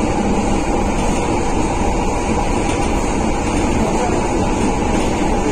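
Steady rumble of a PaFaWag EN57 electric multiple unit running, heard from inside the passenger compartment: wheels on rail and motor noise, loud and even, with no separate knocks or changes.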